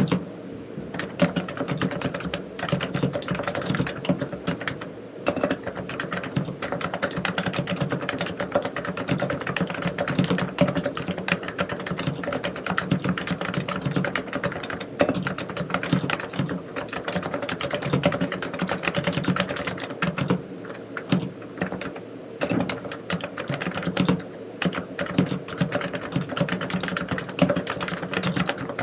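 Continuous fast typing on a Realforce R3 silent tenkeyless keyboard with 45 g Topre electro-capacitive switches: a dense run of keystrokes with a few brief pauses.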